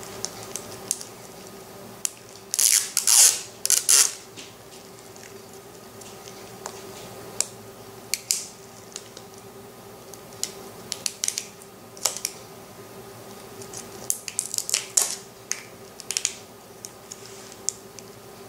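Plastic shrink-wrap on a LOL Surprise ball being torn and peeled off by hand: crinkling and crackling in bursts, loudest a few seconds in and again about three quarters of the way through, with small clicks and rustles between. A faint steady hum runs underneath.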